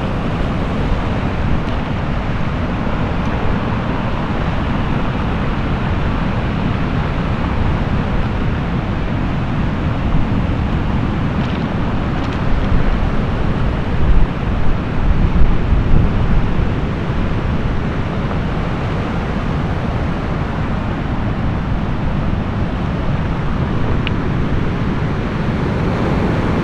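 Stormy sea surf breaking on a pebble beach, the stones rattling as the waves drag over them. Strong wind buffets the microphone throughout, in heavier gusts about halfway through.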